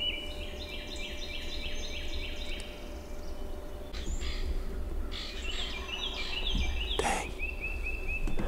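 Songbirds singing in dawn woodland: quick series of repeated high whistled notes, one series early on, another past the middle and a shorter one near the end. Short rustles come at about four and seven seconds.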